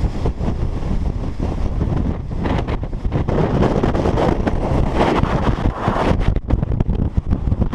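Strong, gusty wind buffeting the microphone, a steady rumbling rush that swells into a fuller gust in the middle.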